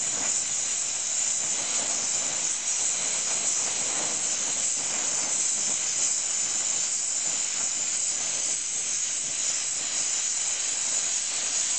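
Gas welding torch flame hissing steadily while a small steel bracket is welded with filler rod.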